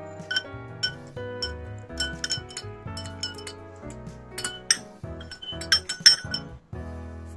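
Metal spoon stirring a glass of milky coffee, clinking against the glass many times in an irregular run that stops shortly before the end. Background music plays throughout.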